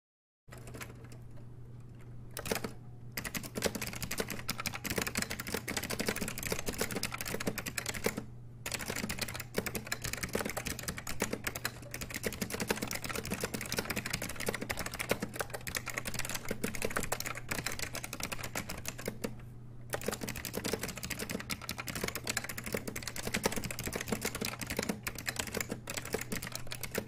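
Continuous fast typing on a Focus FK-2001 mechanical keyboard with white Alps-type switches, a dense run of key clicks that starts about half a second in and pauses briefly three times. A steady low hum runs underneath.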